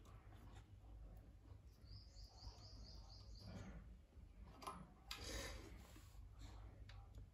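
Near silence with faint handling of thin wires being twisted together by hand. About two seconds in, a bird chirps a quick run of about eight high notes, and about five seconds in a brief rustle is the loudest sound.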